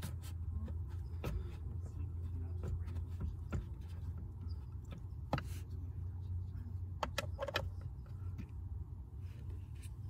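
Scattered light clicks and taps of a small wrench and hand working the screws of a plastic steering-column shroud, with a small cluster of clicks about seven seconds in, over a steady low hum.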